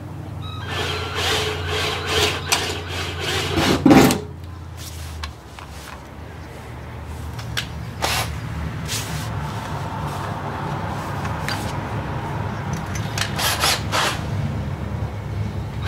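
Hand work at a truck tailgate: an aluminium trim panel and its hardware being handled, rubbed and knocked against the tailgate, with scattered clicks and scrapes. A steady low hum cuts off about five seconds in.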